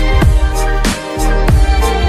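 Background electronic music with a steady beat, deep bass and repeated kick-drum hits that drop in pitch.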